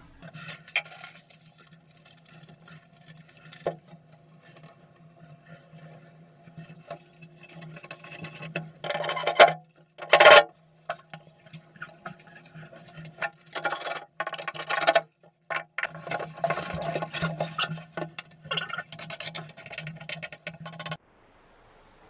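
Hand sanding the edge of a fibreglass shelf with a sheet of sandpaper: irregular rasping strokes, loudest in a run about halfway through, over a steady low hum that cuts off near the end.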